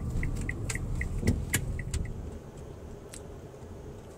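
Inside a moving car's cabin: a steady low road and engine rumble, with a rapid run of short electronic beeps, about four a second, that stops about two seconds in, and a few sharp clicks.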